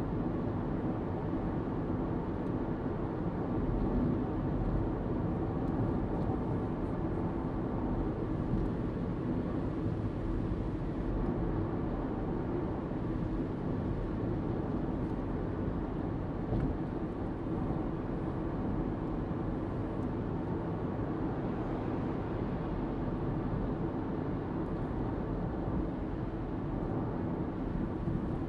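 Steady road noise inside a car cruising on a motorway at about 60 mph: tyre roar and engine hum, even in level throughout.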